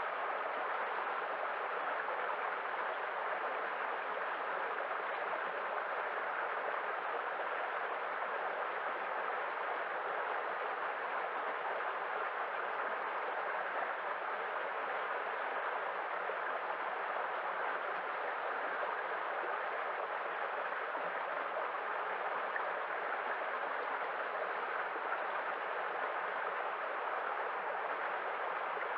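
Waterfall: a steady, unbroken rush of falling water, even in level throughout, with little deep rumble.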